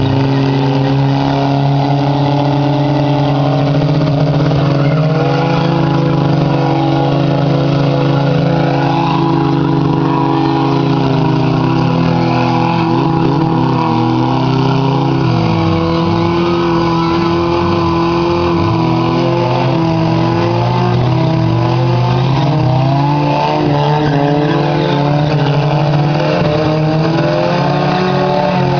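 Several racing vehicle engines running at once, their pitches holding, then rising and falling as they accelerate and ease off, with more rapid up-and-down revving in the second half.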